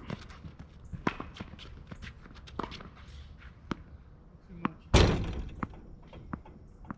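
Tennis rally on an outdoor hard court: sharp pops of racket strikes and ball bounces every second or so, with shoe scuffs between them. About five seconds in comes a loud thump that dies away over about a second.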